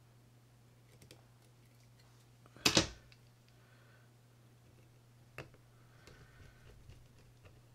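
Small metal reel parts and tools handled on a workbench: faint scattered clicks, a sharp double clack a little under three seconds in and another single sharp click about two and a half seconds later.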